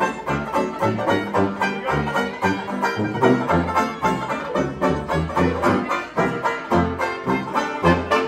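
1920s-style hot jazz band playing, with a strummed banjo to the front over sousaphone bass notes on a steady beat.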